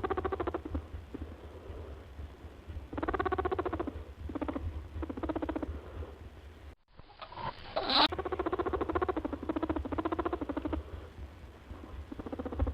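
A small animal's repeated chattering calls, each a rapid buzzy run of pulses lasting a second or two, with a short sharp rising squeal about halfway through.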